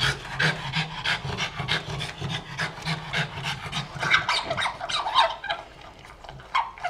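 French bulldog panting hard, quick noisy breaths about three to four a second, easing off near the end.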